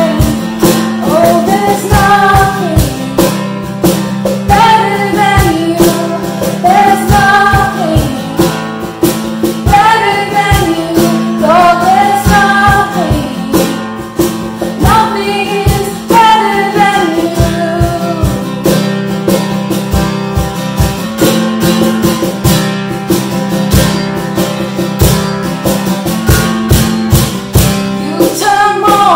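Female voices singing a worship song over strummed acoustic guitar and a steady cajon beat.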